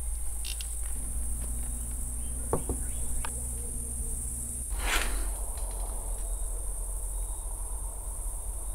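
Crickets chirping steadily in a night-time ambience, with a low steady hum coming in about a second in. A couple of sharp clicks come around two and a half seconds in, and a short swell of noise about five seconds in is the loudest moment.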